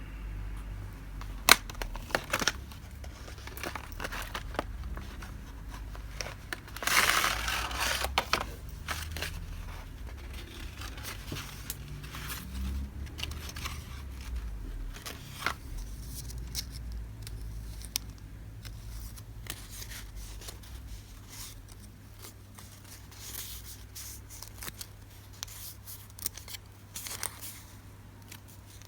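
Packaging and paper being handled during an unboxing: crinkling wrapping with scattered taps and rustles, and a louder burst of crinkling or tearing about seven seconds in.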